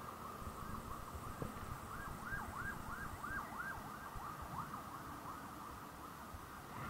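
Faint distant emergency-vehicle siren, a rapid rising-and-falling yelp of about three cycles a second that grows clearer in the middle and fades again, over low background noise.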